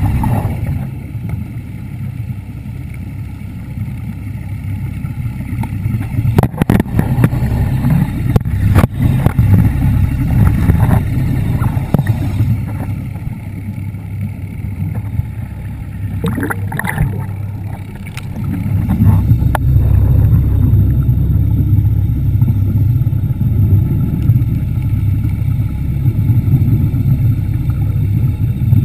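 Underwater scooter running, heard through a GoPro's waterproof housing as a muffled low rumble with water rushing past; it grows louder about two-thirds of the way through, and a few sharp clicks come in the first third.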